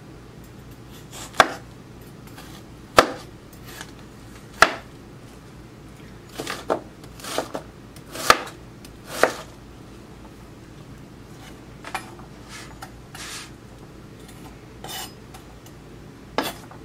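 An 8-inch high-carbon stainless steel chef knife chopping an onion, each cut ending in a sharp knock of the blade against the board. Three well-spaced cuts come first, then a quicker run of cuts in the middle, then a few lighter scattered ones.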